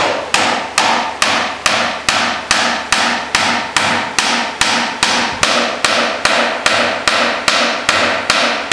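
Hammer driving a poplar dowel pin into a workbench leg joint: a steady run of sharp blows, about two and a half a second, each with a short ring, as the pin sinks nearly flush.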